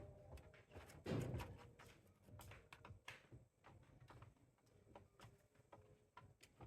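Faint, scattered light taps and rustling, with one louder bump about a second in.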